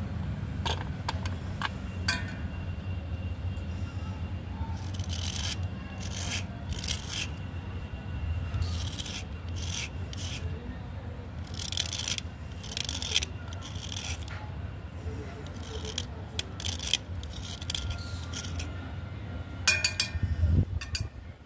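Thin metal blade scraping a wet slate pencil, shaving off clay in short, irregular strokes, with a quick run of louder strokes near the end. A steady low hum runs underneath.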